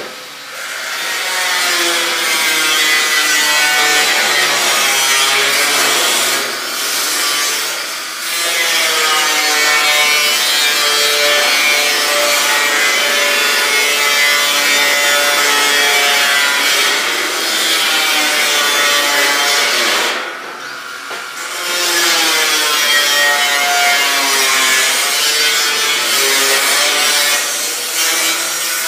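Handheld power grinder working stainless steel sheet: a steady abrasive hiss with a motor whine that wavers in pitch as the load changes. It eases off briefly twice and drops out for about a second some twenty seconds in.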